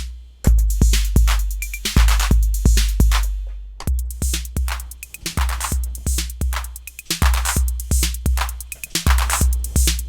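A TR-808-style clone drum machine plays a programmed pattern: deep, long-decaying 808 bass drums under bright cymbal and hi-hat hits. The pattern stops briefly about three and a half seconds in, then starts again.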